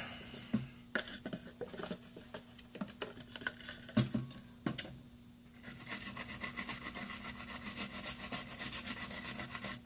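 A rag rubbing over a laptop motherboard, wiping flux residue off the freshly soldered DC jack joints. Light, scattered taps and scrapes at first, then quick, regular back-and-forth scrubbing through the second half.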